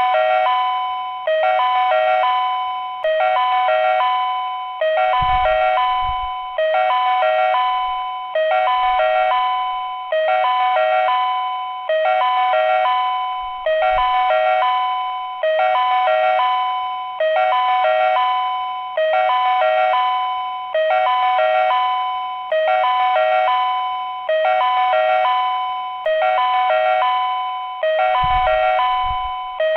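Railway platform train-approach warning chime repeating in an even loop, a short sequence of electronic ding-dong notes about every 1.8 seconds. It signals that a train is approaching the station.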